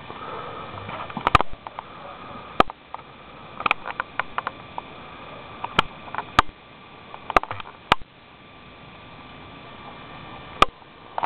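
A Chesapeake Bay retriever sniffing at close range, with about a dozen irregular sharp taps scattered through it.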